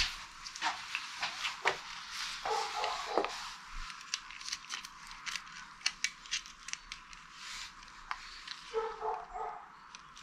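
Steel tape measure and metal bolts being handled on a workbench: scattered light clicks and taps. A dog barks twice, about two and a half seconds in and again near the end.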